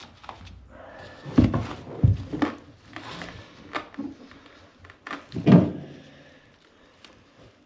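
A series of irregular thuds and clunks from objects being handled and set down during DIY work in a small room, the loudest a little over halfway through, fading towards the end.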